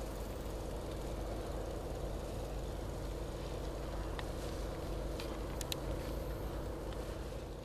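Steady low outdoor background rumble, with a few faint short high chirps about four and six seconds in.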